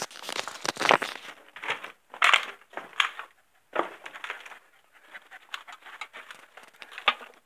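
Irregular crunching and scraping of loose stones and broken glass under someone crawling, in short uneven bursts with brief pauses.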